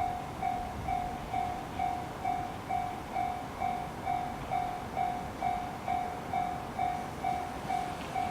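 Japanese railway level crossing's warning bell ringing steadily, about two strikes a second, with a low rumble underneath.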